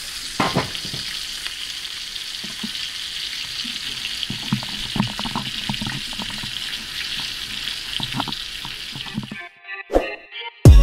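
Ribeye steak sizzling in a hot pan of oil and rendering fat: a steady frying hiss with scattered pops. The sizzle cuts off about nine seconds in.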